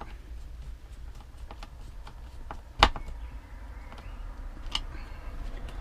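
Light clicks and rattles of small screws and their packet being handled, with one sharp knock a little under three seconds in.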